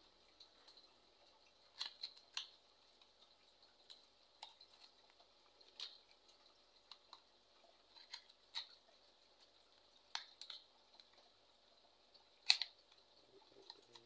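Small cardboard bulb boxes being handled and opened by hand: scattered light clicks and rustles of the card, one sharper click near the end.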